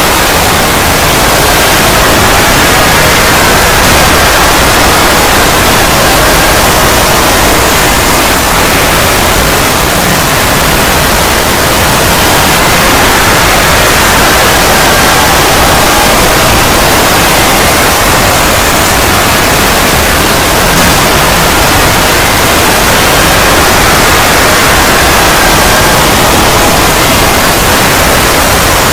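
Panic screaming from many voices layered into one dense, very loud, distorted wall of sound, so thick that it runs together into a steady hiss-like roar without a break.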